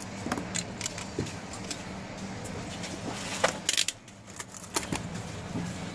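Scattered light clicks and taps of hands handling a multimeter and small repair tools, with a cluster of quick clicks about three and a half seconds in, over a steady low hum.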